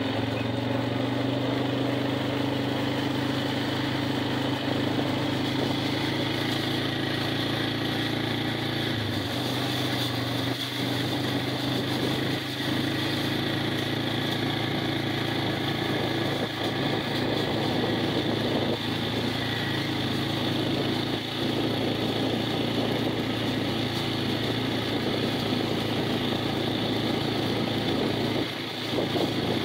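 Small off-road vehicle's engine running steadily at low driving speed, its pitch shifting slightly about nine seconds in.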